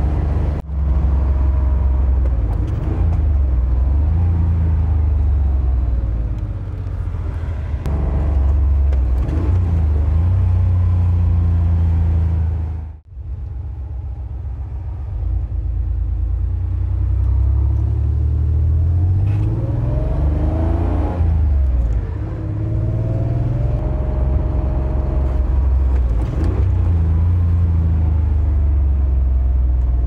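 Air-cooled flat-six engine of a 1987 Porsche 911 heard from inside the cabin while driving, its revs rising and falling through gear changes. It includes throttle blips to match revs on double-clutched downshifts.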